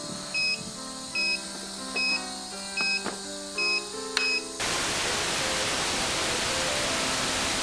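Short electronic beeps, five of them about 0.8 s apart, over soft background music. About four and a half seconds in, a loud steady static hiss cuts in: the audio channel of a 5.8 GHz FPV video link with no signal.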